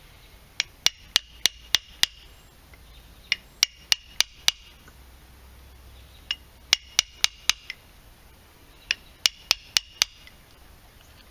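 Hammer striking a steel punch to drive the copper windings out of the slots of a compressor motor's steel stator core. The strikes come in four quick bursts of about five, each strike followed by a short metallic ring.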